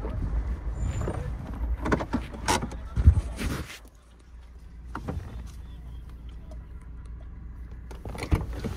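Wind buffeting the microphone with handling knocks as someone gets into a car; about four seconds in a car door shuts and the wind cuts off, leaving a steady low rumble inside the cabin with a couple of clicks.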